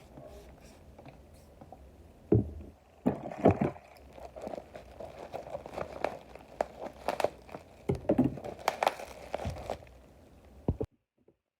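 Product packaging being handled and unwrapped: crinkling and rustling with many small clicks and a few louder knocks. It cuts off suddenly near the end.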